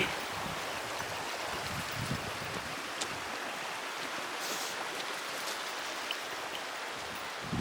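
Creek running: a steady rush of flowing water.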